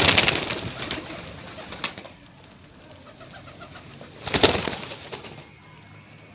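Domestic pigeons' wings clattering as several flutter up close around the feed: a loud burst at the start lasting about a second and a half, and a second, shorter burst about four seconds in.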